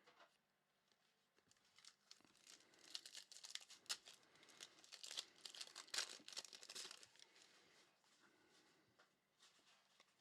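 Faint crinkling and tearing of a baseball card pack's wrapper being ripped open, a few seconds of crackly rustling with sharp clicks.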